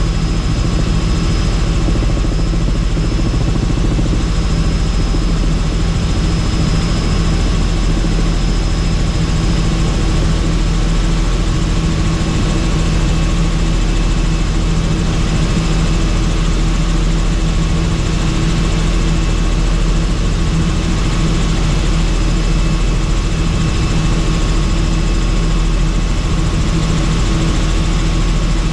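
Helicopter running steadily in flight: an even, loud engine and rotor drone that does not change.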